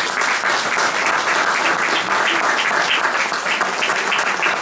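Audience applauding: many hands clapping, loud and even throughout.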